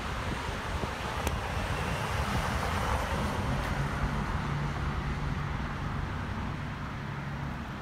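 Wind rumbling on the phone's microphone over road traffic: a vehicle swells past about three seconds in, and a low steady engine hum joins midway.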